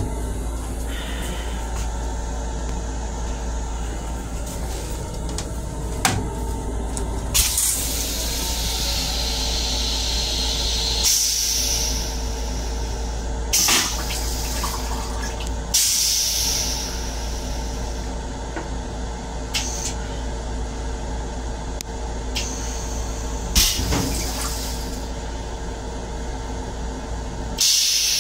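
Railcar restroom toilet flushing into its stainless steel bowl. Several hissing rushes of water, each lasting a few seconds, start about a quarter of the way in. They sit over a steady low rumble.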